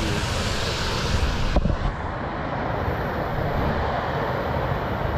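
Wind rushing over the action camera's microphone, with a sudden thump about a second and a half in, after which the sound turns duller.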